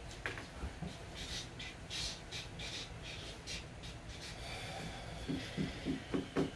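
A man laughing quietly under his breath: a few breathy huffs, then a short run of voiced chuckles near the end.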